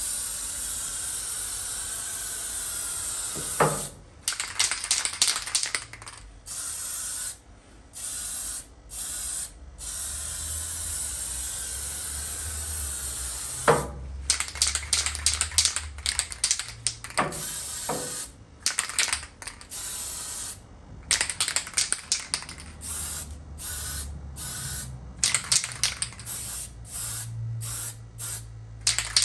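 Aerosol spray paint can spraying: a long steady hiss at first, then many short bursts of spray with brief pauses between, broken by a few longer passes.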